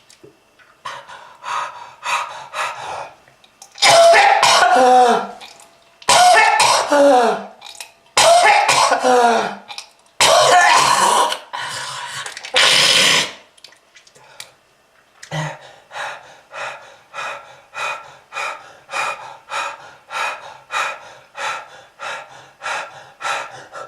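A person coughing hard in fits: a few quick coughs, then several loud, drawn-out hacking coughs that fall in pitch, then a long run of short, even coughs at about two to three a second. It is presented as a smoker's cough.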